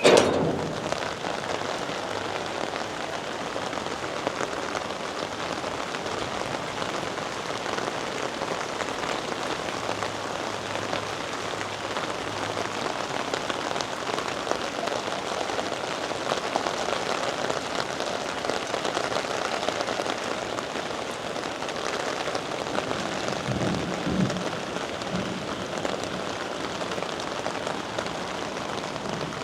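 Steady rain falling, an even hiss with no let-up. Right at the start comes one sharp, loud crack, the loudest sound here.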